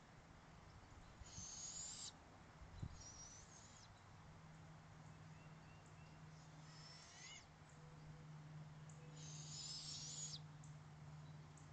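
Owlet in a wooden nest box giving raspy, hissing begging calls: about five of them, each under a second or so long, a couple of seconds apart.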